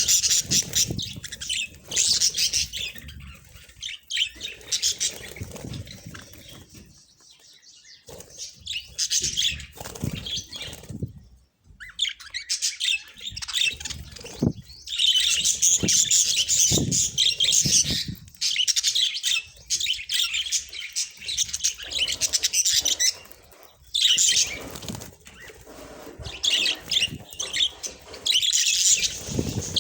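A group of budgerigars chattering and chirping in long bursts, with a lull about seven seconds in and a brief pause near the middle.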